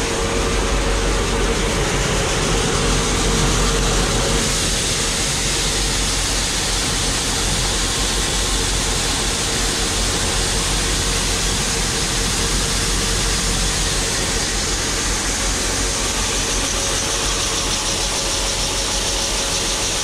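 Portable grain augers running with a steady mechanical hum and rattle while shelled corn pours from a truck into the auger hopper.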